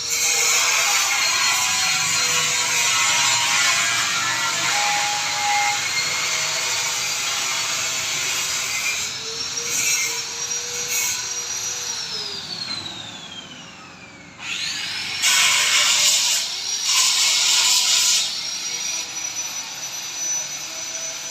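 A high-speed power tool running in a metal workshop, with a steady high whine. About twelve seconds in the whine falls in pitch as it winds down. It starts again with loud bursts of grinding.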